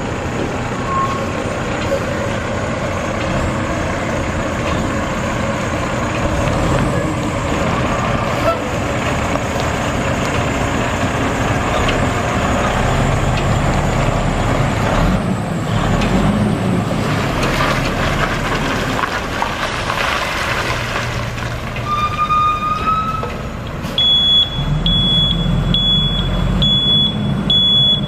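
Heavy diesel truck engine, the hydrovac truck's Caterpillar C15, running steadily. Near the end a high-pitched warning beep starts, repeating evenly, a little under twice a second.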